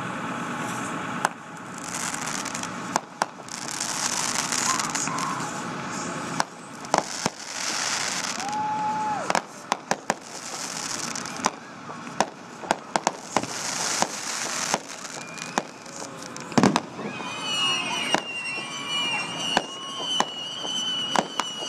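Aerial fireworks show: a rapid series of sharp bangs from bursting shells, with hissing, crackling stretches between them. Over the last few seconds a high, steady whistling runs under the bangs.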